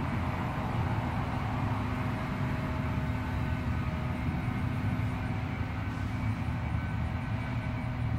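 Steady low outdoor rumble with a faint, even mechanical hum, unchanging throughout.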